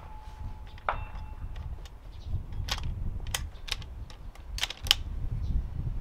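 Bolt and metal AICS-pattern magazine of a bolt-action rifle being worked to clear a feed problem: a series of sharp metallic clicks and clacks, one about a second in ringing briefly, more of them in the second half, over a low wind rumble. The misfeed comes from the chassis's magazine adjustment.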